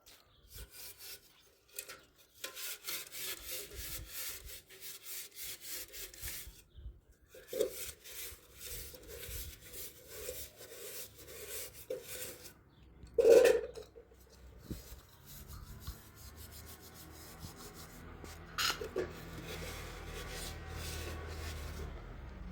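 Rapid rhythmic scraping or rubbing strokes, about five a second, in runs of a few seconds. A single louder, short sound comes about halfway through.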